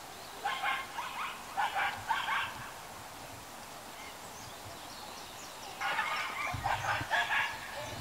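Common moorhen calling: two runs of short, harsh, clucking notes, the first about half a second in and the second about six seconds in.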